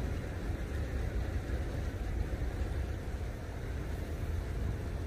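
Steady low rumble of road traffic from a nearby highway overpass, with no separate sounds standing out.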